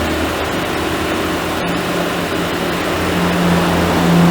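Chevrolet Onix 1.4 four-cylinder engine idling steadily with a constant low hum, running on a freshly fitted timing belt whose cam-to-crank timing has just been confirmed correct.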